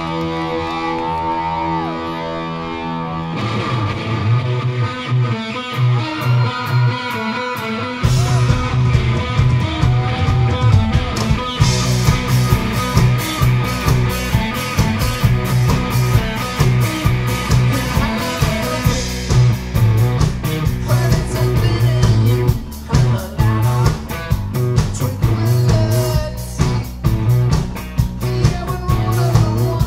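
Live hard rock band playing through a PA at the start of a song. A held chord rings first, then an electric guitar riff comes in about three seconds in, and the drums and bass join about eight seconds in, with cymbals from about twelve seconds.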